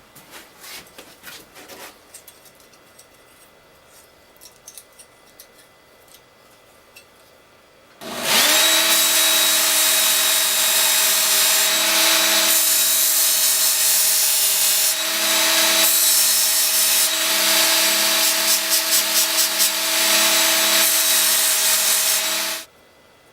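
Faint clicks and scrapes, then an electric power tool starts about a third of the way in, its motor rising to speed, and runs steadily with a grinding noise that swells and eases in loudness before cutting off suddenly near the end.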